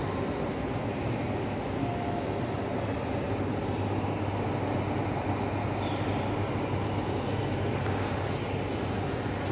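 A steady low rumble with an even hiss over it: outdoor background noise picked up by the handheld camera's microphone.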